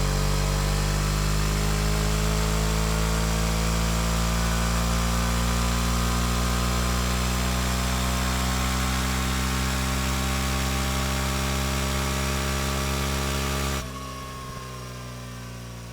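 Suzuki motorcycle engine running steadily, its pitch creeping slowly upward. About 14 seconds in, the sound cuts abruptly to a much quieter level.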